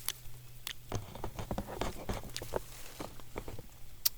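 Footsteps through forest undergrowth: an irregular crackle and rustle of leaves and twigs underfoot.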